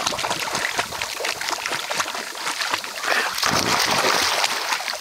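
Water splashing and lapping as a poodle paddles through shallow sea water, with many small splashes; the splashing grows louder for about a second, three and a half seconds in, as it reaches the floating ball.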